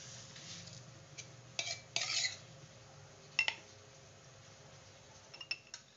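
Glassware clinking and tapping a few times as thick custard is poured from one glass into another, a couple of the clinks ringing briefly.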